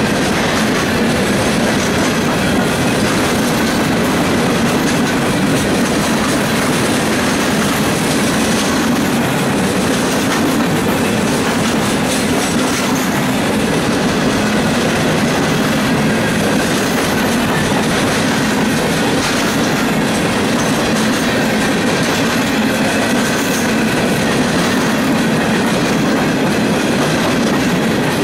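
Freight train of open hopper cars rolling past close by: a steady, loud rumble and clatter of steel wheels on the rails.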